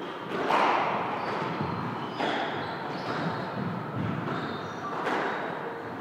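Squash rally: a rubber squash ball struck by racket strings and hitting the court walls about five times, roughly a second apart, each hit echoing off the walls. The loudest hit is about half a second in. Short squeaks from court shoes on the wooden floor sound between the hits.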